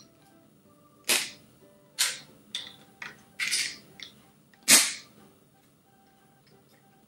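Snap Circuits plastic modules being unsnapped from and snapped onto the base grid by hand: a run of sharp snap clicks, about seven in four seconds, the loudest about two-thirds of the way through.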